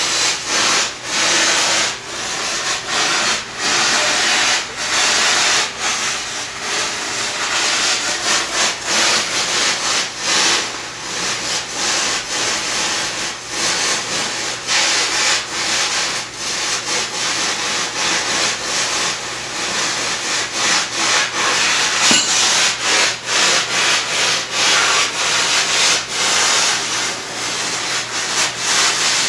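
Carbon dioxide pipe-freeze kit hissing with an uneven, rasping sputter as the gas freezes the water in the copper heating pipe.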